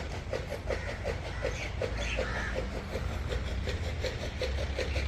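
An engine running steadily, with an even knocking of about five beats a second over a low hum.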